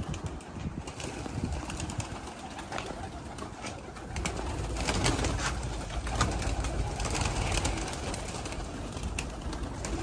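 Domestic pigeons cooing over a steady low rumble that grows louder about four seconds in.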